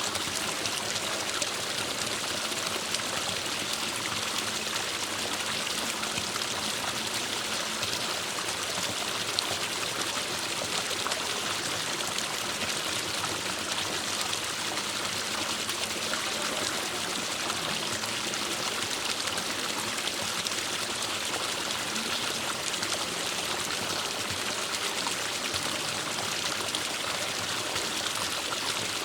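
Forest stream running steadily over rocks, a continuous rush of flowing water.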